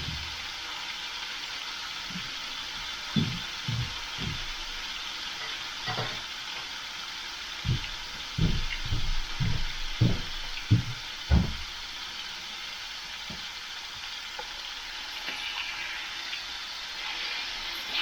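Back bacon sizzling in oil in a frying pan, a steady hiss, with a string of short dull low knocks in the middle.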